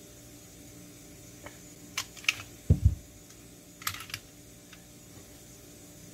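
Smith & Wesson M&P Shield .45 ACP pistol being field stripped by hand: sharp metal clicks and clacks, a dull thump near the middle as a part is set down on the cloth-covered table, then a quick cluster of clicks.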